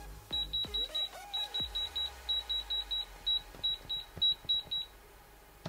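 Egardia alarm system keypad giving short, high electronic beeps in quick runs of about four, a few a second, stopping shortly before the end. It has just been switched on by pulling its battery tab and is being keyed.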